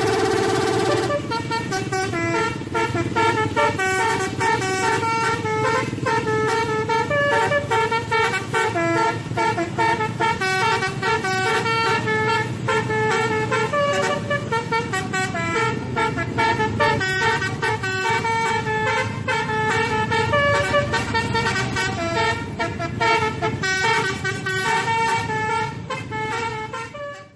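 Indonesian 'telolet' bus horn playing a fast multi-tone melody, the notes changing several times a second, stopping abruptly at the end.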